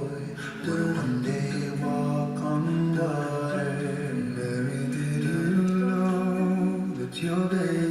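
A cappella vocal music: several voices singing held, layered harmonies without instruments.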